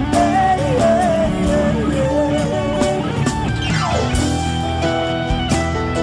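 A male singer holds a long, wavering sung line over band backing with guitar. About three and a half seconds in, a quick falling slide drops in pitch, and the band carries on without the voice.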